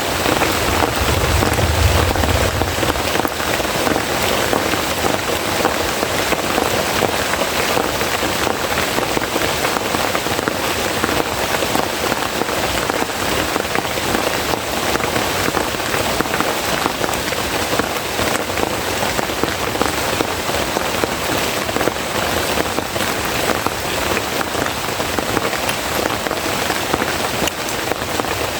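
Heavy rain falling steadily, a dense even hiss of drops on surfaces, with a brief low rumble about two seconds in.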